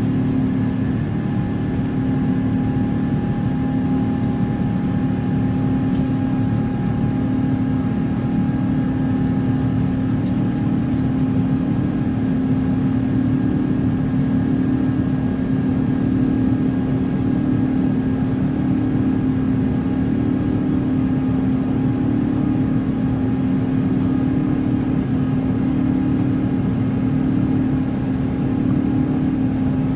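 Airbus A350 cabin noise from a seat over the wing during the climb after takeoff: the Rolls-Royce Trent XWB turbofans and airflow make a steady drone, with a low hum that beats gently about once a second and fainter steady higher tones above it.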